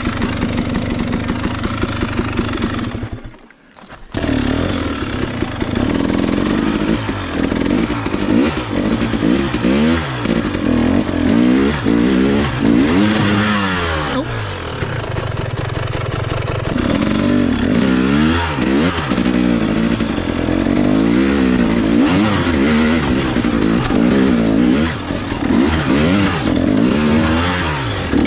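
300cc two-stroke enduro motorcycle engine revving up and down again and again as it is throttled over rough ground. The engine sound drops out for under a second about three seconds in, then returns.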